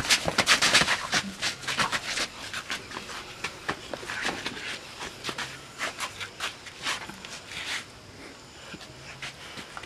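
A scuffle: bodies grappling and feet scuffing on dirt ground, a rapid run of sharp rustles and slaps that thins out after about two seconds.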